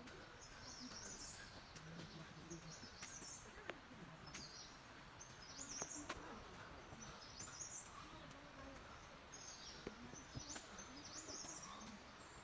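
Faint forest ambience: a bird chirping in short high calls, repeating every second or two, with a few light clicks.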